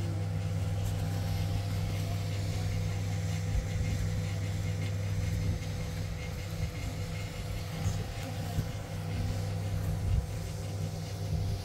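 A steady low hum from an engine or motor running at an even speed.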